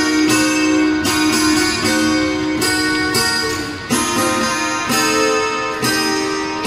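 Instrumental guitar music: plucked notes and chords, each struck and left to ring out.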